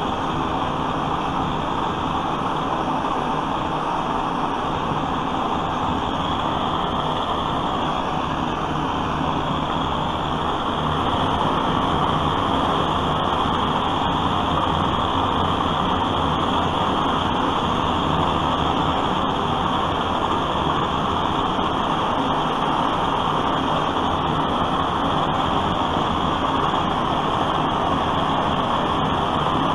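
Vintage pressurized gasoline blowtorch burning: a steady rushing flame noise that gets a little louder about eleven seconds in.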